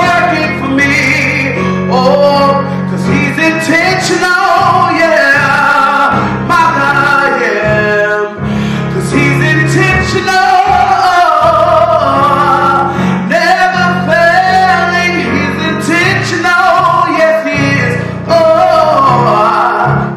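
A woman sings a church worship song into a microphone, accompanying herself on an electronic keyboard that holds sustained low chords under her voice.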